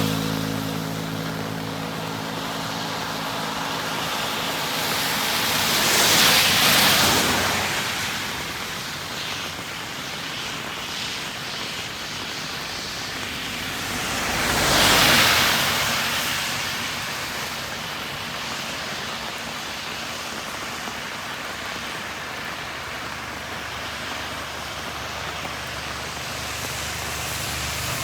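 Steady hiss of heavy rain on a wet highway, with a vehicle passing twice, about six and fifteen seconds in, each pass swelling and fading away with the hiss of tyres on the wet road.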